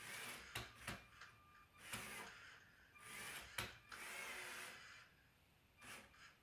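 LEGO Mindstorms Robot Inventor robot's motors and gears whirring in several short bursts as it drives and turns, with a few sharp clicks in between.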